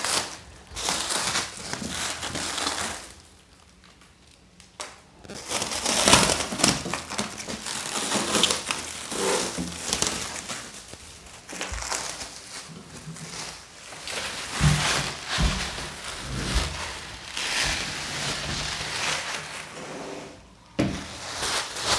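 Clear plastic protective wrap being pulled off a folding table and crumpled, crinkling irregularly, with a pause about three seconds in. A few dull knocks come in the second half.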